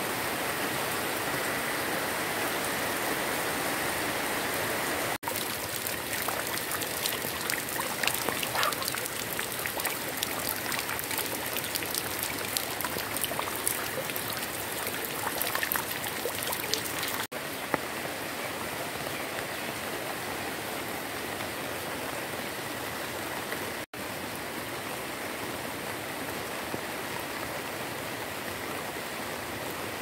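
Steady tropical rain falling on garden plants, with running water. For about ten seconds from five seconds in, sharp ticks of single drops landing close by stand out. The sound breaks off for an instant three times.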